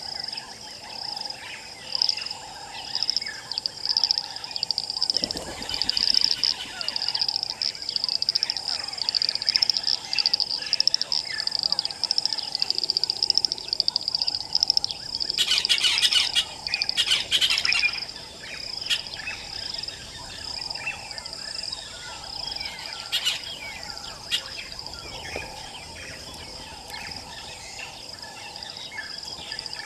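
Outdoor bushveld ambience: many wild birds chirping and calling. Their calls lie over a steady high-pitched, pulsing insect drone. About halfway through comes a louder run of rapid bird calls.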